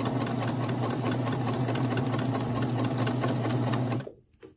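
Electric sewing machine stitching steadily, its motor humming under a rapid, even clatter of needle strokes, then stopping abruptly about four seconds in, followed by a couple of faint clicks.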